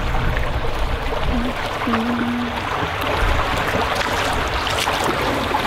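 Water in a small creek sloshing and trickling as someone wades across it on foot, with a few splashes.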